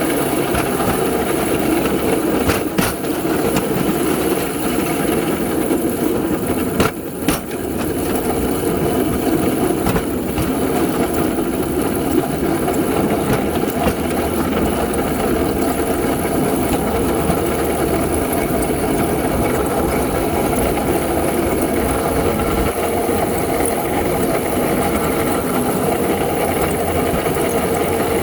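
Engine running steadily, with a few sharp clicks about 3 and 7 seconds in.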